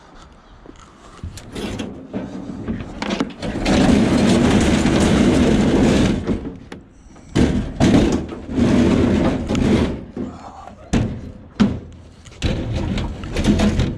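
Heavy scrap metal being handled and loaded: two long stretches of scraping and dragging, then several sharp knocks and bangs near the end.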